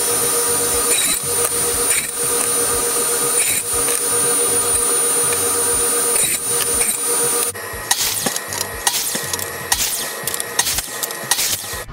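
Radial arm saw running steadily with a whining motor while crosscutting pressure-treated decking boards into short random-length pieces, each cut a brief louder stroke. About two-thirds of the way in it changes to a miter saw running, with a quick series of sharp cuts and knocks.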